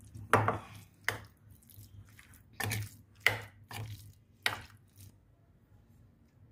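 Spoon stirring and mashing chickpeas in a glass bowl: about seven sharp knocks and scrapes of the spoon against the glass over five seconds, then the stirring stops.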